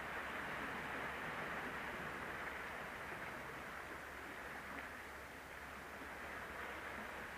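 Steady hiss of the sea washing against the rocks, with no distinct sounds standing out.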